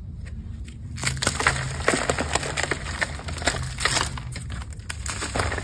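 Fingers crushing soft, delicate blocks of Bon Ami and cornstarch, which crumble to powder in a dense run of crunching and crackling that starts about a second in.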